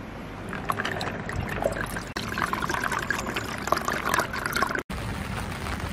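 Water pouring from the spout of a stainless steel water jug into metal camping mugs, a steady splashing trickle that cuts off abruptly near the end.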